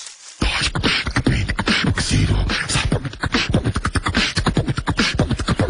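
Rapid-fire staccato vocal noises, like beatboxing, starting about half a second in after a brief pause: the shouting match has dissolved into fast mouth sounds instead of words.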